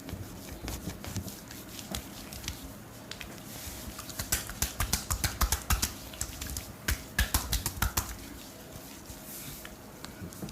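A barber's hands slapping and tapping on oiled skin during a head and body massage: a run of quick, sharp slaps and clicks that come thickest in rapid bursts between about four and eight seconds in.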